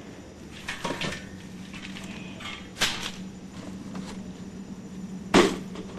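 A few knocks and clatters of metal parts being handled, the loudest about five and a half seconds in, over a steady low hum.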